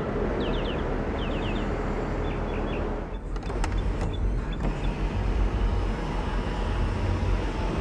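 The 6.2-litre V8 of a 2008 Mercedes-Benz E63 AMG idling with a steady low hum, while the electric power sunroof motor runs as the glass panel moves. A few short high chirps come near the start, and there are faint clicks about three seconds in.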